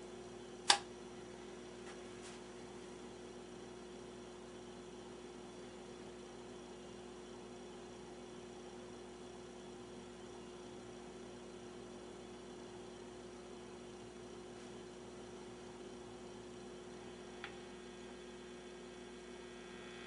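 Philco 39-30 tube radio's loudspeaker putting out a steady low hum with no station coming through. There is a sharp click about a second in and a faint tick near the end.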